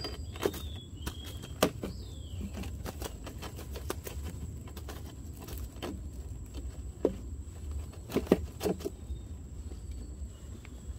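Scattered sharp clicks and taps of close handling, with a cluster of louder ones about eight seconds in. A few short falling bird chirps sound in the first two seconds, and a faint steady high whine runs underneath.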